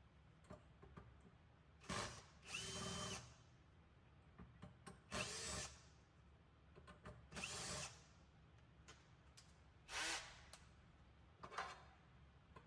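Power drill with a No. 2 Phillips bit, set to low torque, backing out the bus bar screws on a hydro-cooled crypto miner. It runs in about five short bursts of under a second each, with pauses and small clicks between them.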